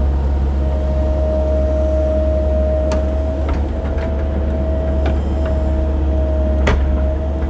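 Cat 308 mini excavator's diesel engine running steadily under digging work, with a steady high whine over the low drone. Two sharp clicks or knocks come about three seconds in and near the end.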